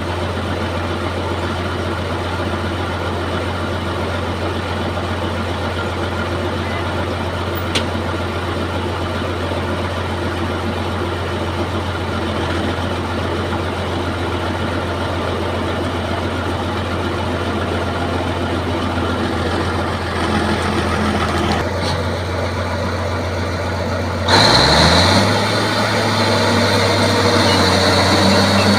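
Bulldozer's diesel engine running steadily at low speed, then revving up sharply near the end, its pitch rising and holding higher.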